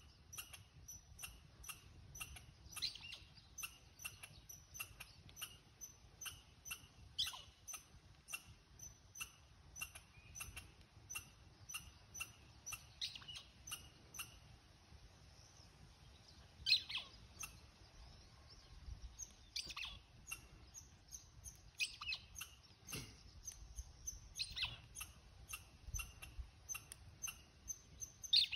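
A dog's rubber squeaky toy squeaked in short bursts every few seconds, the loudest about halfway through and near the end. A faint high ticking, about two or three a second, runs under it.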